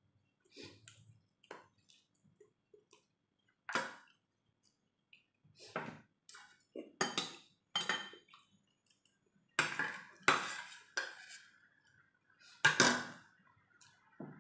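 Metal spoon and fork clinking and scraping against a ceramic plate and bowl during a meal: scattered sharp knocks, the loudest about ten and thirteen seconds in.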